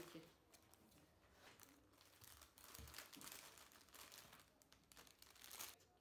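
Faint crinkling and rustling of something being handled, in scattered small clicks, with a louder crinkle near the end.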